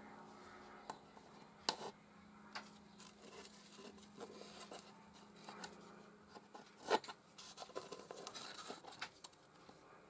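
Faint handling of a plastic pen-blank centre finder on a wooden pen blank: light taps and scratchy rubbing, with a pencil scratching through the finder's slot to mark the centre and two sharper clicks, one near two seconds in and one about seven seconds in. A faint low hum stops around seven seconds in.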